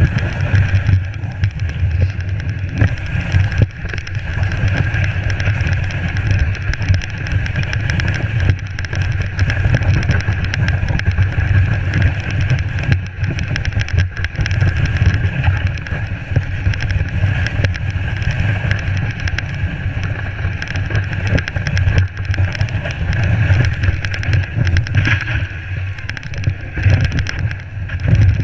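Steady rumble and scraping of a GT snow racer sled gliding over snow, picked up through the GoPro mounted on its steering wheel, with wind on the microphone.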